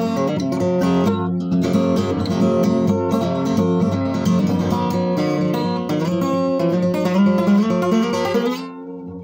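Steel-string acoustic guitar fingerpicked in open G tuning, an improvised run of plucked notes and strummed chords. Near the end the playing stops and the last notes ring out.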